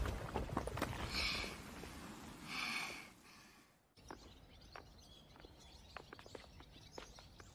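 Animated explosion sound effect dying away, with scattered small clicks and two short hissing swells, falling to a hush. After a cut, faint street ambience with light ticking footsteps.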